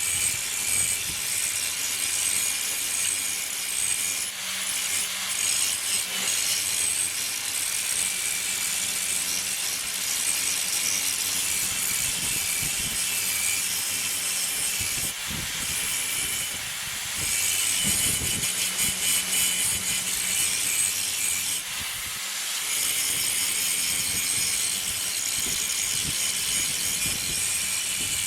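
Steady abrasive rasping from hand-tool work, like sawing, filing or sanding, with a few short pauses.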